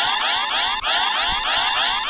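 Synthesized emergency-alert-style alarm sound: rising electronic sweeps repeating about three times a second over a steady high tone.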